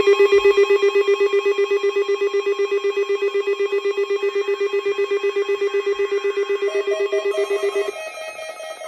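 Weather radio receiver's alert alarm set off by a weekly test signal: a pulsing electronic warble, about eight pulses a second, that stops about eight seconds in. Music with a guitar comes in near the end.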